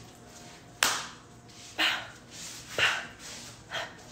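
A person's short, breathy huffs, about one a second, each quickly fading.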